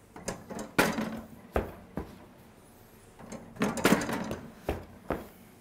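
A metal dough scraper cutting through bread dough and knocking on the work counter as the dough is portioned into lumps: a string of sharp knocks and short scrapes, with a busier run of them about four seconds in.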